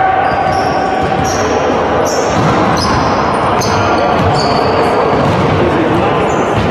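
Sports-hall noise during a volleyball game: sneakers squeak again and again on the court floor, over ball thuds and voices in a large hall.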